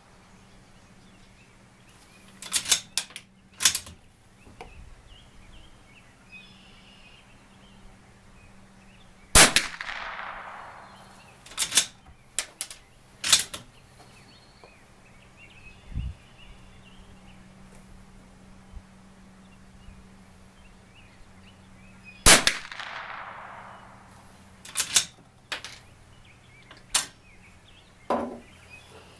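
Two .22 LR rifle shots from a bolt-action Bergara B14R, about 13 seconds apart, each followed by a short fading echo. Between and after the shots come quick clusters of metallic clicks and clacks as the bolt is cycled to eject the spent case and chamber the next round.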